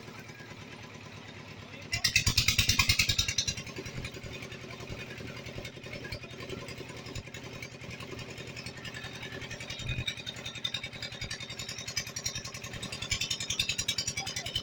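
A small engine running steadily with rapid, even pulses, louder with added hiss for about a second and a half starting about two seconds in.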